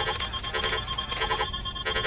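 Several looped electronic sound effects layered together: steady high tones with short clusters of beeps repeating about every half second, like an alarm clock or ringtone.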